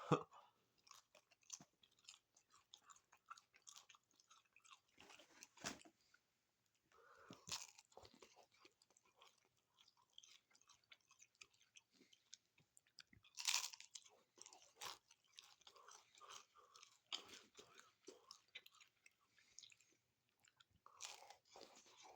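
Chewing and crunching on a Doritos Locos Taco, its hard Doritos-chip shell crackling between the teeth, faint and irregular, with a few louder crunches along the way.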